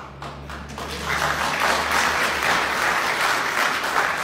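Audience applauding, swelling about a second in and holding strong.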